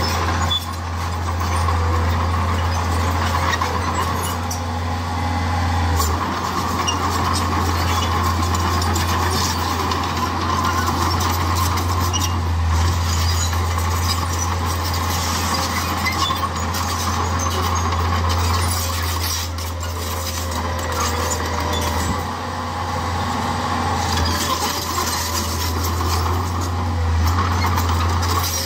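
Diesel engines of heavy earthmoving machinery, a crawler dozer and a dump truck, running steadily at work: a low, continuous drone with a noisy mechanical rattle on top that dips briefly a few times.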